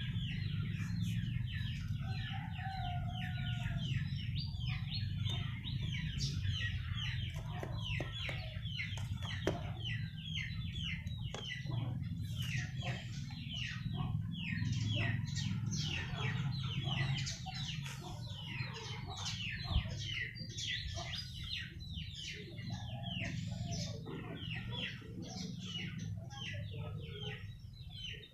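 Chickens clucking, with a dense, continuous chatter of short, high, falling chirps.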